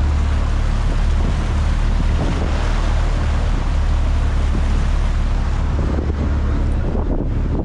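Dive boat's engine running steadily under way, with the wake rushing behind the boat and wind buffeting the microphone.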